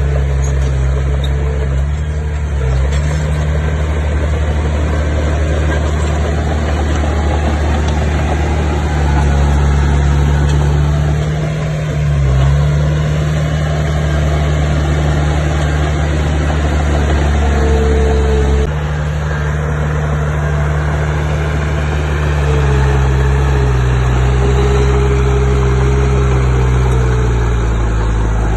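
Bulldozer's diesel engine running loudly and steadily, its pitch dipping and rising as the load changes. The sound changes abruptly about two-thirds of the way through.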